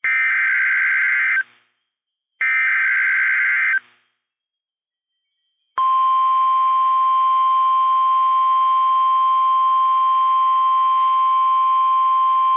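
NOAA Weather Radio emergency alert signal. It opens with two harsh, buzzing SAME digital header bursts, each about a second and a half long with a second of silence between them. After about two seconds of silence, the steady 1050 Hz warning alarm tone begins and holds.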